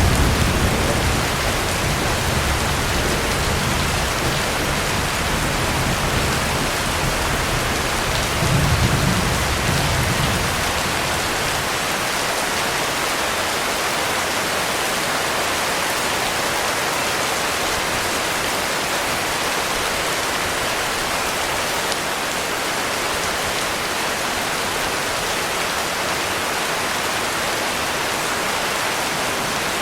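Heavy rain falling steadily, with a low rumble of thunder that swells about nine seconds in and fades away by about eleven seconds.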